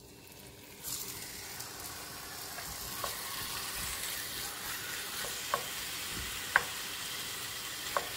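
Raw chicken pieces hitting a hot oiled cast-iron skillet, which starts sizzling about a second in and keeps up a steady frying hiss as the pieces are spread with a wooden spatula. A few sharp clicks cut through the sizzle.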